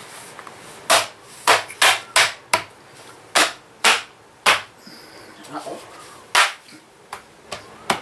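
White plastic cable trunking being pressed shut along a wall, its lid clipping onto the base with a quick run of sharp plastic snaps, then two more spaced out near the end.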